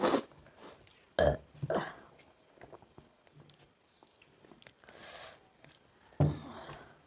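A person burping while eating: four short, sudden burps, one right at the start, two in quick succession about a second in, and one near the end.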